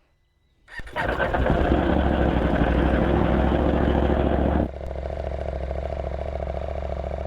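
Motorcycle engine starting up about a second in and running loudly, then dropping suddenly to a quieter, steady idle for the rest.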